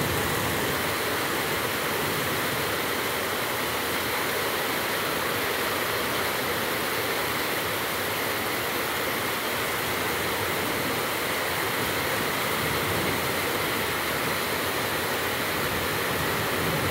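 Heavy downpour: a dense, steady hiss of rain that holds level throughout.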